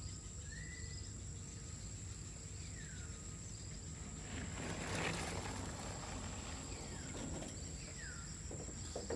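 Outdoor ambience: a bird calling with short whistled notes that glide down, repeated every few seconds, over a steady high-pitched whine and a low background hum.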